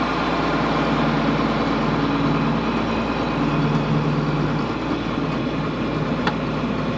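John Deere 4250 tractor's six-cylinder turbo diesel running steadily under load, pulling a full load of grain. A single brief tick about six seconds in.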